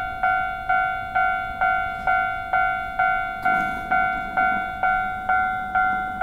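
Railway level-crossing alarm ringing: one pitched bell tone struck over and over, about twice a second, each strike fading before the next.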